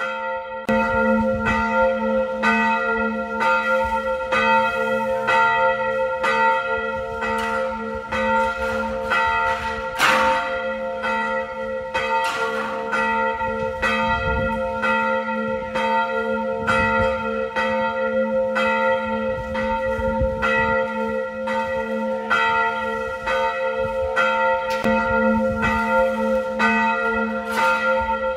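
Church bells ringing, struck over and over in quick succession, each strike renewing a set of steady ringing tones that carry on between strikes.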